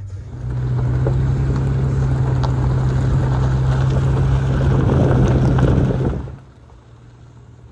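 A vehicle engine running with a steady low drone and a rushing noise over it, stopping about six seconds in.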